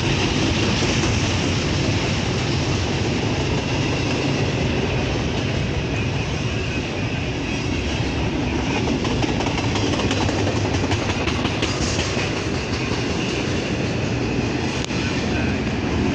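Norfolk Southern freight train rolling past: a steady, loud noise of the cars' wheels on the rails, with no horn.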